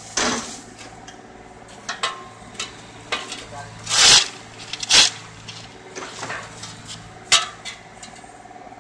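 Steel shovels clinking and scraping against the pavement and soil, several short strikes with the longest and loudest scrape about four seconds in, over the steady hum of an idling engine.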